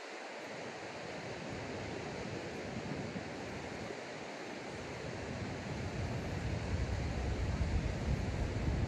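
Steady rushing noise of wind on the microphone outdoors, with low buffeting rumble that grows stronger about two-thirds of the way through.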